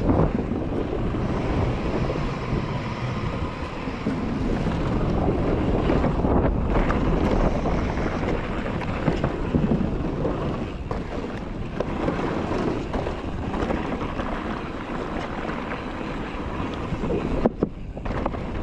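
Wind rushing over the microphone on a fast mountain-bike descent of a dirt trail, with the rumble of the tyres and irregular knocks and rattles from the bike over bumps. A sharper knock comes near the end.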